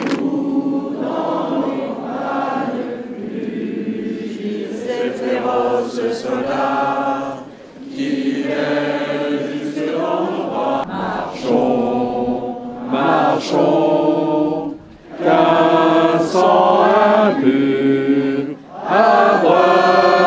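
A large crowd singing together, many voices holding long notes in phrases, with brief breaks between the phrases.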